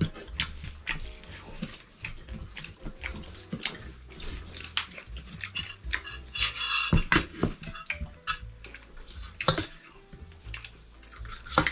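Metal dishes and a spoon clinking and knocking irregularly: steel bowls and a plate being handled during a meal.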